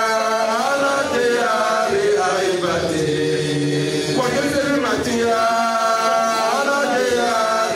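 A man chanting an Islamic religious chant, in long held notes that bend and glide from pitch to pitch.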